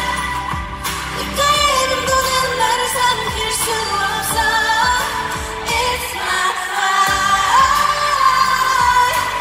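Female K-pop singer's live vocal over a pop backing track, heard through an arena PA from the audience. The bass drops out for a moment about two-thirds of the way in, then the full backing returns.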